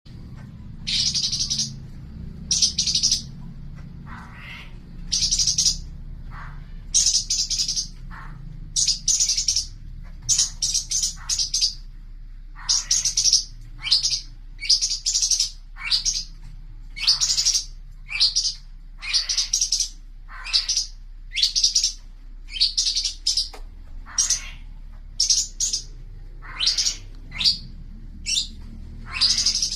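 A cucak cungkok songbird singing vigorously: short, loud, chirping phrases repeated about once or twice a second, with brief pauses between groups. A steady faint low hum runs underneath.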